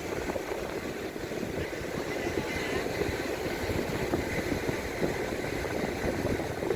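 Wind buffeting the microphone on an open beach: a steady, gusting rumble, with faint voices in the background.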